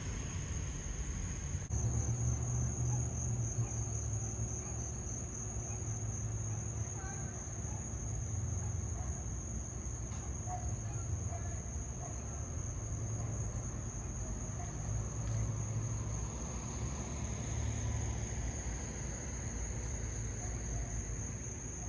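Insects chirring steadily: one continuous high-pitched, slightly pulsing trill, with a low rumble underneath.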